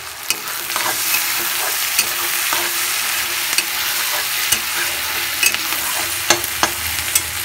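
Sliced onions sizzling in hot mustard oil as they fry toward golden brown, stirred with a metal spatula. The spatula scrapes and clicks against the pan now and then, with the sharpest clicks about six seconds in.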